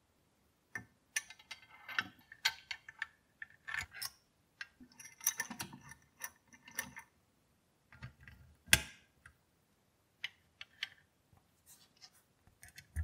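Scattered clicks, taps and light scrapes of small parts being handled and fitted as a bent steel rod is set through the toy's metal body and a wheel is worked onto its axle. One sharper knock comes about two-thirds of the way in.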